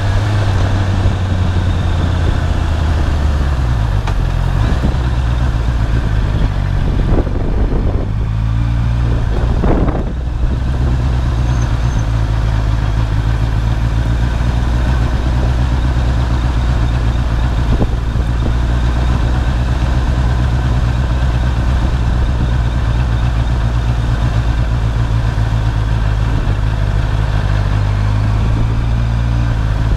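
Sport motorcycle engine running at low road speed, heard from the bike itself. The engine note shifts around four seconds in and again around eight to ten seconds in as the throttle changes.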